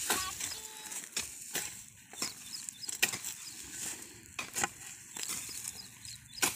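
Hand hoes with steel blades chopping and scraping into dry, cloddy field soil, loosening it between sugarcane rows: irregular sharp strikes about once or twice a second.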